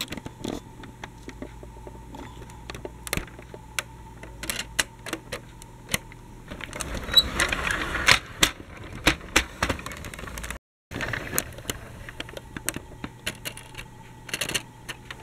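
Plastic toy tram (Dickie Toys City Liner) rattling and clicking irregularly over a faint steady hum. The clicking thickens into a denser, noisier stretch about halfway through, then cuts out for a moment.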